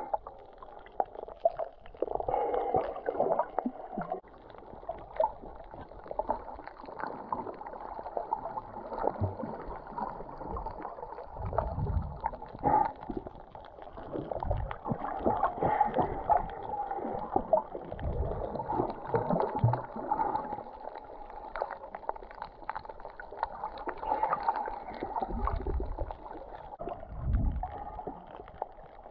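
Underwater sound picked up by a submerged camera: a muffled, steady crackling and gurgling wash, with low rumbling swells coming and going every few seconds.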